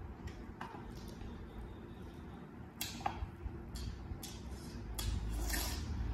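Close-up eating sounds: scattered wet mouth smacks and small clicks of fingers and food against a plate, about a dozen, over a low hum that swells near the end.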